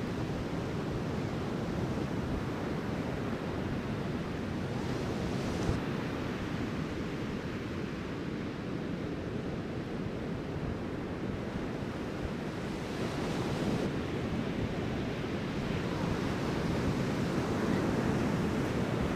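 Ocean surf breaking and washing in, a steady rushing roar that swells a little near the end, with wind buffeting the microphone.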